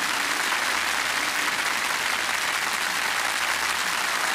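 Studio audience applauding steadily after a stage performance.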